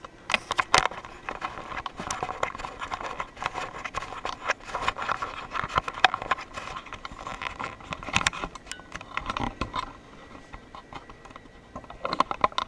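Large cardboard shipping box being handled: flaps rustling and scraping, with many small knocks and crackles.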